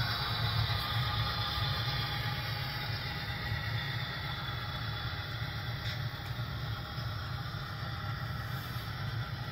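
HO-scale model passenger train rolling steadily along the layout track: a continuous low hum with a rumble of the cars' wheels on the rails.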